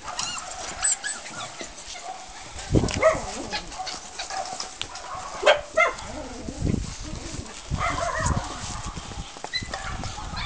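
A dog barking several times in short yaps, with a few dull thumps in between.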